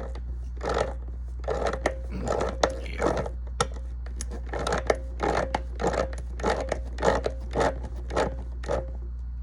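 Repeated short scraping strokes, roughly two a second, over a steady low hum.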